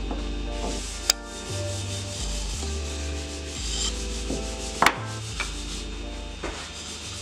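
Background instrumental music with held notes and a stepping bass line, over the scratching of a wooden marking gauge scribed along a hard maple block. Two sharp knocks about a second in and near five seconds in.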